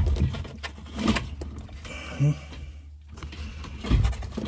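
Irregular clicks, knocks and scraping from the plastic fuel pump sender assembly of a Volvo 940 being worked by hand in the fuel tank opening. Its top has broken off, and the loose pieces are being pulled apart. A steady low hum runs underneath.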